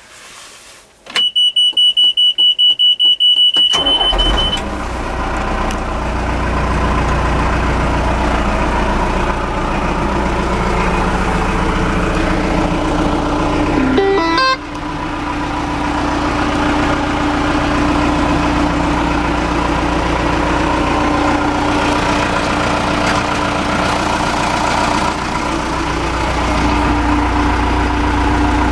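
John Deere 310SE backhoe: a warning buzzer beeps rapidly, about four times a second, for a couple of seconds. At about four seconds in the four-cylinder diesel engine starts, then idles steadily.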